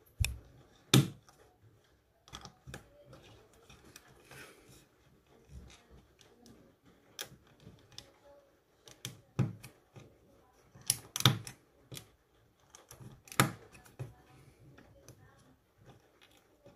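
Lego bricks and small plastic pieces clicking and snapping together as they are pressed onto a baseplate and handled, in scattered sharp clicks with a few louder snaps along the way.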